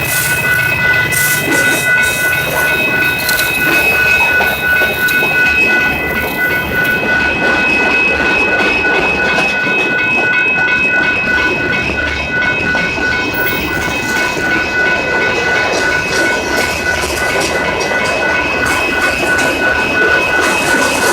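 Union Pacific locomotive horn held in a long, steady chord of several tones while the train passes, its wheels clattering on the rail joints.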